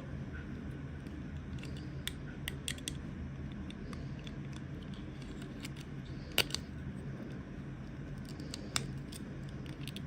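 Toy packaging being opened: scattered small clicks and snips, the loudest a sharp click about six seconds in, over a steady low hum.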